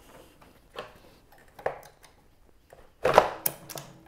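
Stock plastic airbox and intake boot being worked off the throttle body. A few light knocks, then a louder clatter of plastic knocking about three seconds in.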